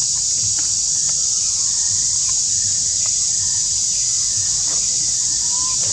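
Steady, high-pitched drone of forest insects, with a few faint ticks and a short chirp near the end.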